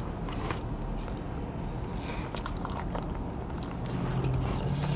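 A person chewing a mouthful of burger close to the microphone, with soft wet mouth clicks and smacks scattered through it.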